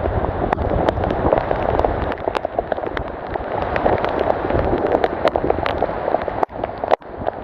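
Heavy rain falling: a dense, steady hiss with many sharp drop hits throughout, cutting out briefly twice near the end.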